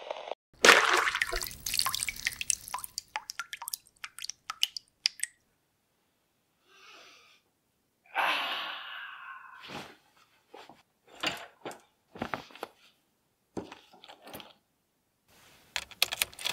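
A sudden loud burst of rustling, trailing off into scattered clicks; then a man's long yawn, falling in pitch, as he stretches; then more sharp clicks, and car keys jangling in the ignition near the end.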